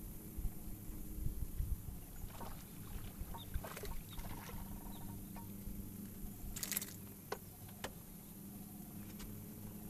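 A small bass being reeled to the boat and lifted from the water, with a short splash about two-thirds of the way through and scattered sharp clicks of tackle before it, over a steady low hum and some low rumbling on the microphone near the start.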